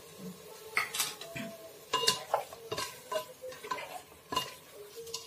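A spatula stirs chicken pieces in wet masala inside an open pressure cooker pot. Irregular scrapes and knocks against the metal pot start about a second in.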